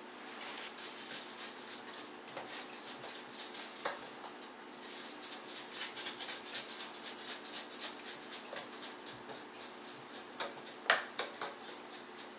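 Damp perlite refractory mix being rammed into the walls of a coffee-can forge: a long run of short scraping and tapping strokes, a few a second, with one sharper knock near the end.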